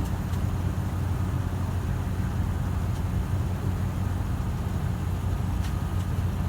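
Metrolink diesel locomotive engine running steadily, a low even drone, with a couple of faint clicks.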